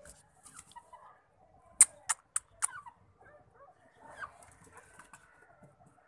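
Aseel chickens clucking softly in short scattered calls. About two seconds in, four sharp clicks come in quick succession, louder than the calls.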